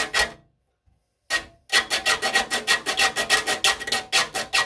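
Triangular saw file being stroked quickly across the steel teeth of a hand saw, sharpening them, each stroke with a shrill metallic squeal. A couple of strokes, a pause of about a second, then fast steady strokes at about four a second.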